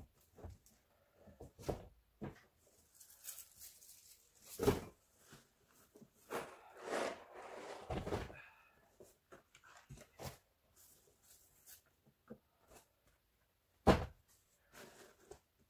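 Cardboard boxes being handled and set down in a pickup bed: scattered knocks and thuds with a rustling stretch from about six to nine seconds in, and two sharper thumps about five and fourteen seconds in.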